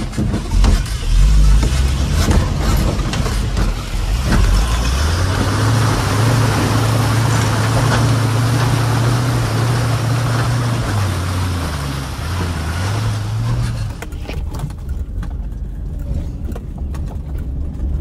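Truck engine pulling hard under load as the tyres plough through a deep muddy water hole, water splashing and spraying off the wheel. The engine note climbs and holds, then dips, and the splashing stops suddenly near the end, leaving the engine running more quietly.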